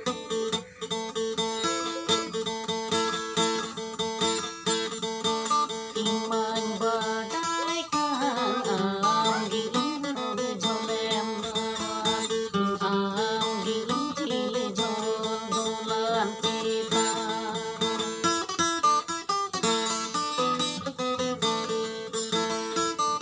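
Acoustic guitar strummed in steady, repeating chords, played without singing.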